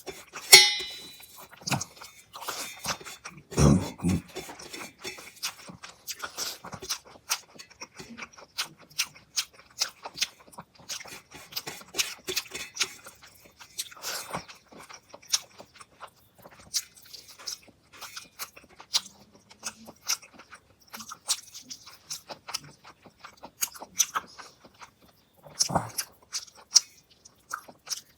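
Close-miked chewing of fish curry and rice: a steady run of wet mouth clicks and lip smacks, with two louder knocks in the first few seconds.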